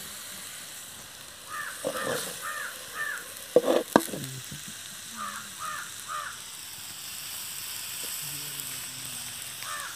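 Crow cawing, a run of four calls and then three more a few seconds later, over a faint sizzle of food frying in an iron pan. A metal lid knocks down onto the pan about four seconds in.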